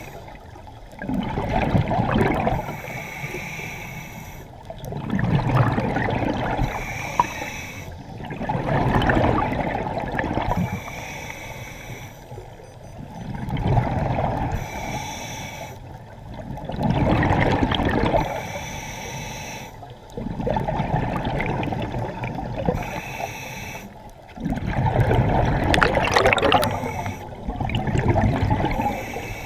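A scuba diver breathing through a regulator underwater: a hissing inhale through the demand valve, then a louder rush of bubbling as the exhaled air leaves the exhaust, repeating about every three to four seconds.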